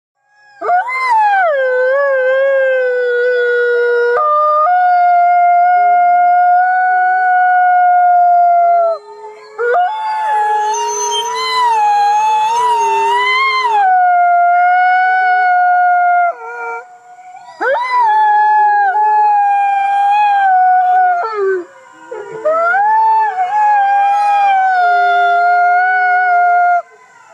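Arctic fox crying in long, high, drawn-out howls of several seconds each, about five in a row with short breaks between them. Each howl begins with a quick slide in pitch and then holds steady. The one about ten to fourteen seconds in is rougher and wavering.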